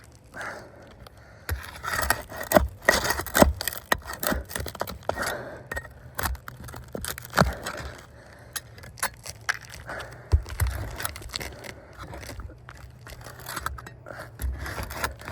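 Metal pry bar scraping and clicking against roofing shingles and nails, prying overdriven roofing nails up from underneath to free a shingle. Irregular scrapes mixed with sharp clicks.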